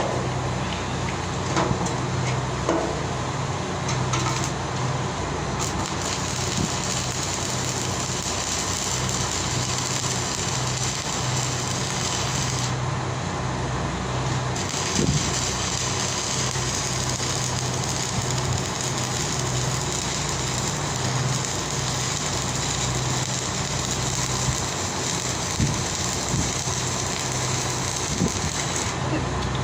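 Steady machinery hum with a high hiss over it; the hiss cuts out for about two seconds around the middle, then comes back.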